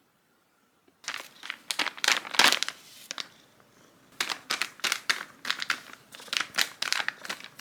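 Crinkling and crumpling in irregular bursts of quick crackles, starting about a second in after near silence.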